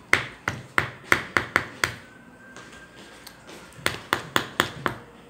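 A metal spoon tapping repeatedly on the hard white chocolate shell that tops a Magnum ice cream tub, to crack it: a quick run of about seven sharp taps, a pause of nearly two seconds, then about five more.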